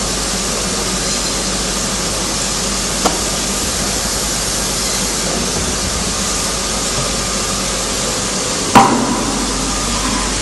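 A plastic bucket being fitted by hand onto the bucket holder of a semi-automatic screen printing machine, over a steady hiss. There is a light click about three seconds in, and one sharp knock with a short ringing tail near the end.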